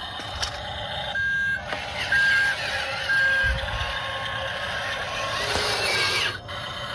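Electronic reversing beeper of a remote-control construction model, giving three short beeps at the same pitch about a second apart. Under it runs the noise of the models' electric motors working, which cuts off abruptly near the end.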